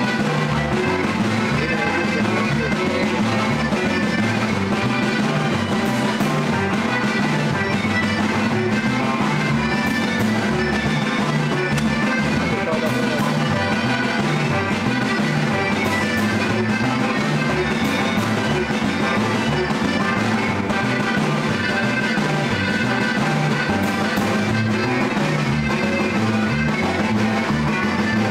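Live norteño music: button accordion and guitar over a rhythmic bass line, an instrumental stretch of the duo's closing huapango without singing.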